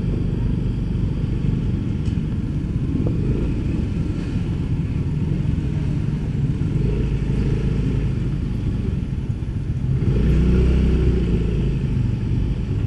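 Motor scooter engine running as the scooter rolls slowly, a steady low drone that swells louder for a second or two about ten seconds in.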